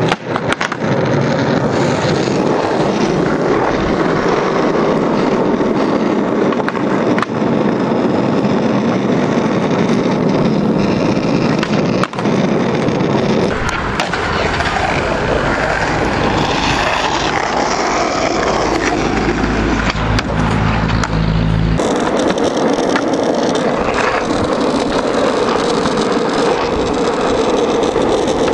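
Skateboard wheels rolling over asphalt, a continuous rough noise, with a few sharp clacks of the board popping and landing during tricks.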